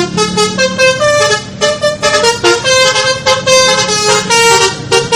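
A quick, bouncy tune of short stepped notes played on musical vehicle horns, telolet-style, over a steady low hum.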